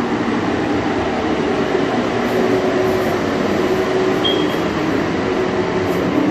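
Steady, loud blower drone: a motor hum under a rushing-air hiss, holding level throughout, from the spray or ventilation equipment used in bathtub refinishing.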